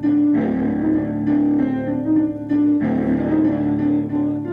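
Instrumental music played on a Korg Triton synthesizer keyboard: a repeating melody of short notes over a steady low accompaniment.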